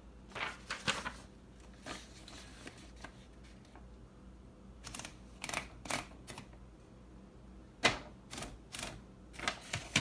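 1955 Royal Quiet De Luxe manual typewriter mechanism clicking: about a dozen separate, unevenly spaced clacks and taps in small groups, the loudest about eight seconds in.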